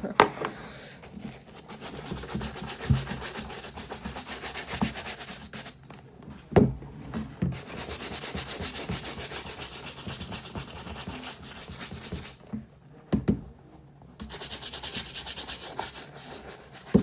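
Bristle brush scrubbing a sneaker with cleaning solution in fast back-and-forth strokes. The scrubbing stops briefly twice, and a few sharp knocks sound, one about six and a half seconds in and another about thirteen seconds in.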